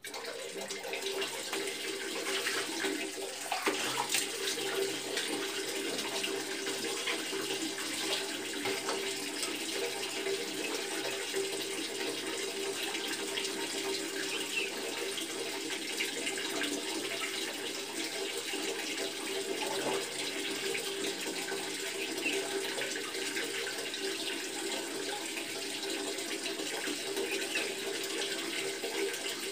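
Wall tap turned on, water running steadily from it and splashing onto a tiled floor, with hands rubbing and splashing the water over bare feet and legs. The running water starts suddenly and goes on without a break.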